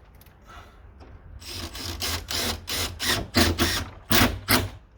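Cordless drill-driver run in a quick series of short bursts, about three a second, driving screws to fix a gate stabilisation plate.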